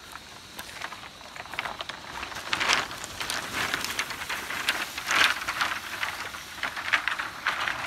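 A bundle of cut malingo bamboo canes dragged over dry leaf litter on the forest floor, rustling and scraping, with louder swells about every two seconds as it is pulled.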